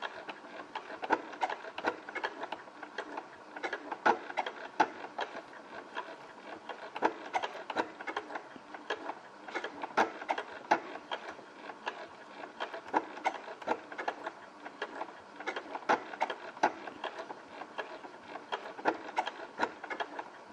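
Janome DC4030 sewing machine stitching slowly on an overcast stitch: a steady run of mechanical clicks and ticks from the needle and feed mechanism, a few a second.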